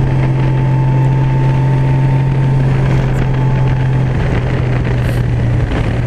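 Honda Gold Wing motorcycle engine running at a steady cruise, a constant low drone under a wash of wind and road noise, easing slightly in pitch a little past halfway.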